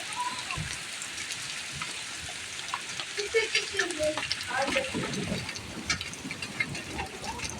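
Hailstones pelting hard surfaces: a dense, steady crackling patter with many sharper clicks from individual stones striking.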